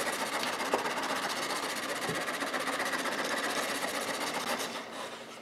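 A plane iron of soft steel, clamped in a wooden sliding jig, is rubbed back and forth on a sharpening stone, making a steady scraping as a 30-degree secondary bevel is honed. It fades out near the end.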